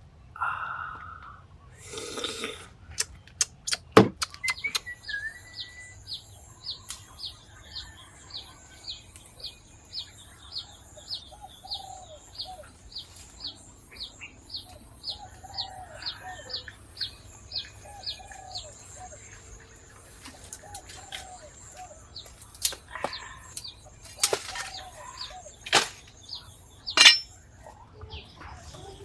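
Forest ambience: a bird repeats a short high chirp about twice a second for roughly fifteen seconds over a steady high insect buzz, with lower calls from another bird. A few sharp knocks and clicks break in, the loudest about four seconds in and near the end.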